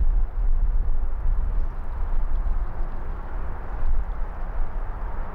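Strong wind buffeting the microphone in gusts, a loud low rumble, over a steady hiss of distant city traffic.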